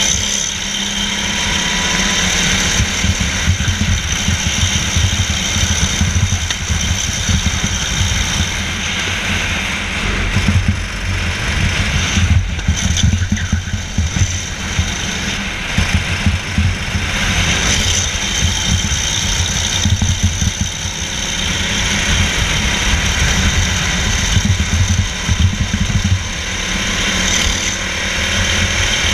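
Go-kart engine driven hard around a track, heard from a camera mounted on the kart: a continuous engine note that swells and eases as the throttle is worked through the straights and corners.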